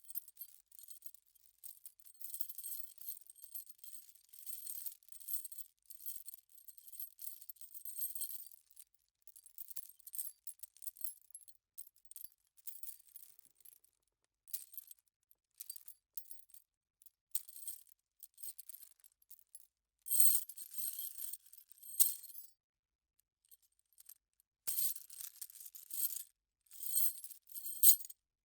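Metal chain rattling and jingling as it is handled, light metallic clinking. It is almost continuous for the first eight seconds, then comes in short shakes with pauses between them, the loudest shakes coming in the last third.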